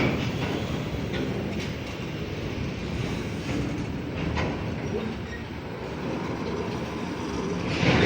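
Freight train rolling past, a steady low rumble with scattered wheel clacks over the rail joints and a louder clatter near the end.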